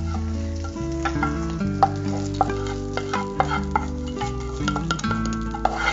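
Hot coconut tempering, fried in coconut oil, sizzling as it is scraped from a small frying pan into a pot of curry, with several sharp taps of the wooden spatula on the pan. Background music with held notes plays underneath.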